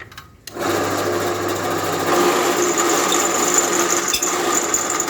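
Bench drill press motor starting about half a second in and running steadily with a high whine.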